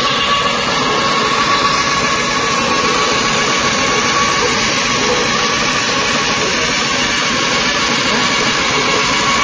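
Wet-soybean seed-coat peeling machine running steadily, with a constant whine over its mechanical noise.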